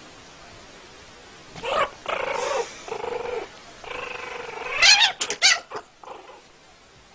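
High-pitched cries from a puppy and a kitten play-fighting: drawn-out calls starting about one and a half seconds in, one rising in pitch, then a quick run of short sharp yelps near five and a half seconds.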